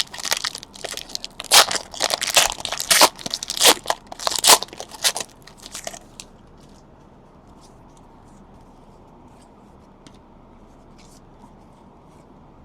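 Trading card pack wrappers being torn open and crinkled: a quick run of loud rustles and tears for about six seconds, then only faint scattered ticks.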